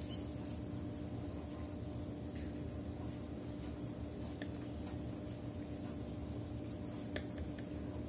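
Pen scratching on ruled notebook paper as words are written, faint, over a steady low hum.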